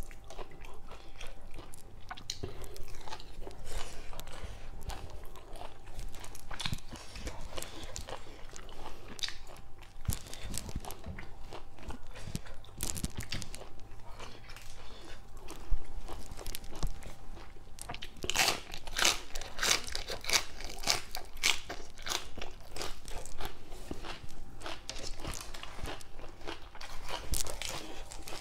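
Close-up chewing and crunching of crisp raw vegetables such as lettuce eaten with papaya salad, with the densest, loudest crunching about two-thirds of the way through.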